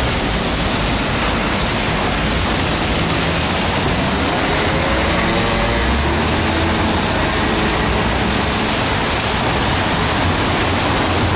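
Steady street traffic noise on a wet city street, with a vintage Peter Witt tram running along its rails and a car passing close by near the end.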